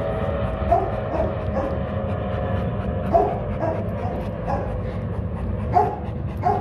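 A dog barking in short, sharp yaps, about seven or eight spaced irregularly, over a steady low rumble.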